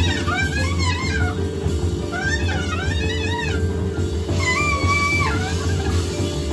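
Free-improvised jazz: a metal clarinet plays high, wailing lines that swoop up and down in pitch, holding one steady note for about a second a little over halfway through. Double bass and drums play densely underneath.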